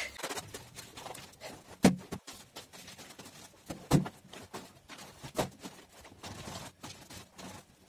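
Wet fabric skin of a teddy bear being scrubbed and kneaded by hand on a tiled floor: quiet rubbing and squelching, with three sharper slaps of the wet cloth spread through it.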